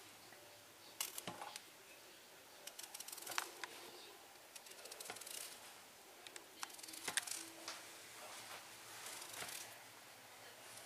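Faint, scattered light clicks and scrapes of a knife cutting a raw potato into a turned shape, with small trimmings dropping into a metal tray.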